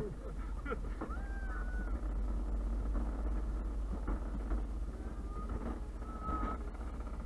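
Luge cart rolling fast down a concrete track: a steady rumble of the wheels on the surface, with wind buffeting the microphone. A couple of faint, brief high tones sound about a second in and again near the end.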